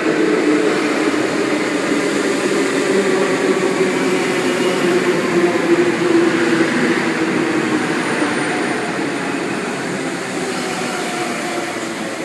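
K-set double-deck electric train (K99) pulling into the platform: a steady rumble of wheels and running gear with a low whine, easing off slowly toward the end.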